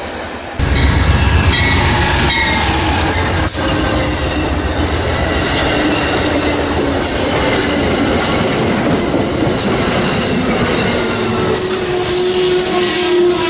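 A train rolling past, its steel wheels squealing against the rail in several steady high-pitched tones over a heavy low rumble. The sound jumps abruptly louder about half a second in.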